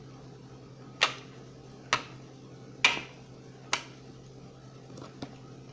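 Four sharp taps on a tabletop, evenly spaced about one a second, then a fainter one near the end, over a faint steady low hum.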